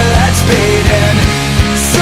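Rock background music with a steady drum beat and guitars.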